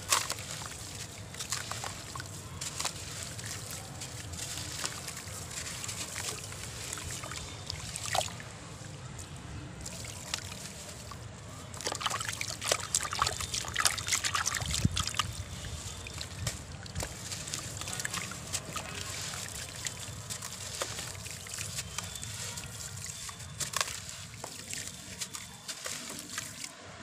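Soft sand-cement blocks being crumbled by hand into a tub of water: gritty crumbling and crunching, with the water sloshing and the wet sand dribbling and splashing into it. It grows louder and busier about halfway through.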